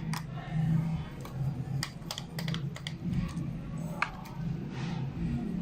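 Scattered small clicks and taps of a screwdriver and laptop parts being handled while a hard disk is taken out, over a steady low hum.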